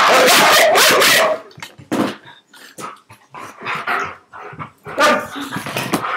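German shepherd growling and barking while being roughhoused, in a play-fight. Loud and continuous for the first second or so, then short scattered barks and snorts.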